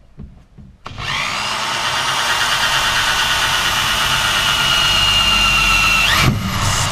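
Cordless drill drilling into the sheet-metal trunk floor of a car, through a sound-deadening pad. It starts about a second in and runs steadily with a high whine for about five seconds, pauses briefly, then starts again near the end.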